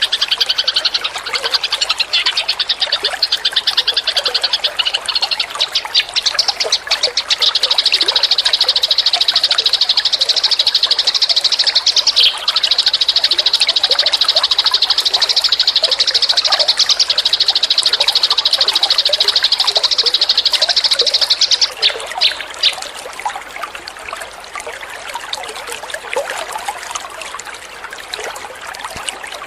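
Eurasian tree sparrows chirping in fast, dense chatter; about two-thirds of the way through the chirping thins out and gets quieter.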